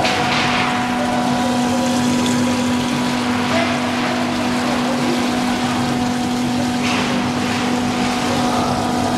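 30-ton-per-day flake ice machine running: a steady, loud machine hum with a constant tone, with a few brief hissing swells over it.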